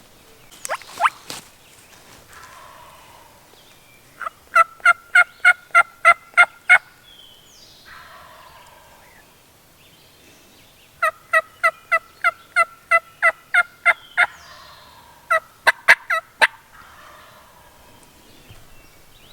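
Turkey yelping: two runs of about ten evenly spaced yelps each, roughly four a second, followed near the end by a few sharper, louder notes.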